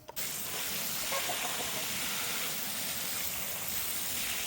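Liquid being sprayed, a steady hiss that starts abruptly just after the beginning and holds without a break.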